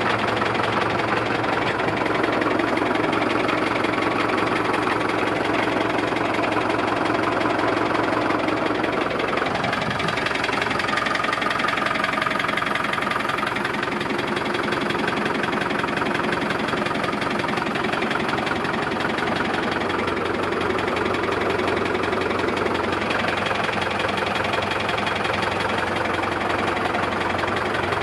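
1977 SAME Saturno 80 tractor's air-cooled diesel engine idling steadily.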